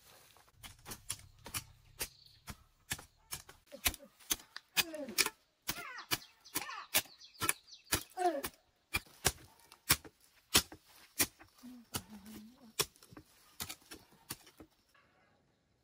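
A steady run of sharp knocks or taps, about three a second, which stops abruptly about a second before the end; a voice is heard briefly in the middle.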